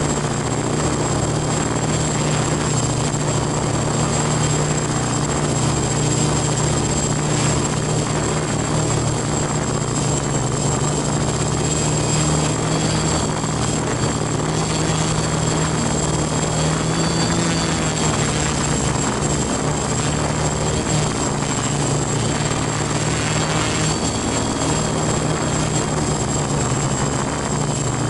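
F450 quadcopter's motors and propellers buzzing steadily in flight, heard up close from on board the frame, the tone wavering slightly in pitch.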